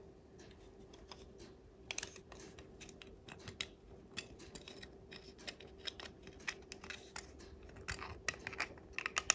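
Plastic case halves of a Chamberlain garage door remote handled and pressed together by fingers at the back edge: faint scattered clicks and scrapes, busier and louder near the end.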